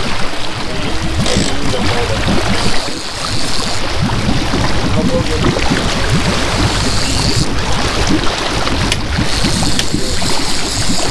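A fishing boat's engine running steadily, with water splashing and gurgling along the hull.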